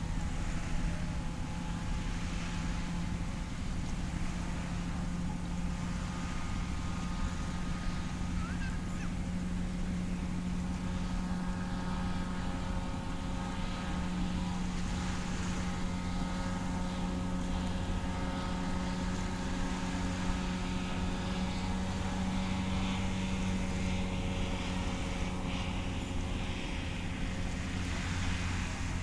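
Amphibious microlight trike's engine droning steadily from a distance, an even engine note that barely changes.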